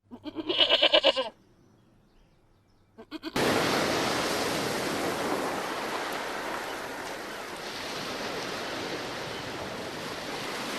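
A single quavering bleat from a farm animal, about a second long. From about three seconds in comes a steady, even rushing noise that cuts off suddenly.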